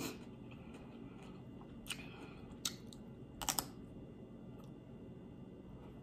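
Crunching into a raw broccoli floret: a handful of sharp, crisp crunches spaced out over the first few seconds, the loudest a quick double crunch about three and a half seconds in, with quieter chewing between.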